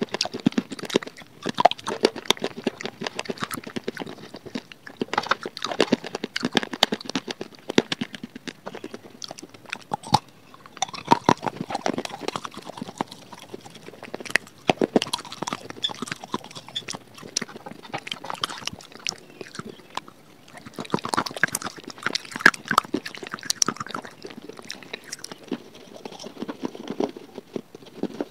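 Close-miked crunching and chewing of baked clay diya pieces and chalky white clay: crisp, irregular crunches that come in clusters with short quieter pauses.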